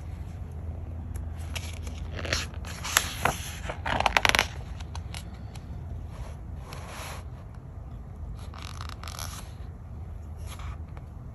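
Pages of a large art book being turned by hand: paper rustling and sliding, with a cluster of crisp snaps and crackles between about two and four and a half seconds in, the loudest just after four seconds. Softer paper rustles follow later, over a low steady hum.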